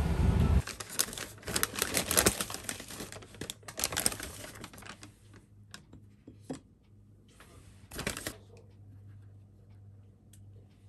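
Paper bag crinkling and rustling in quick bursts as donuts are taken out and set on a ceramic plate, with light clicks among it. The rustling thins out after about five seconds, with one more short rustle about eight seconds in. In the first half-second the low rumble of a train cabin cuts off suddenly.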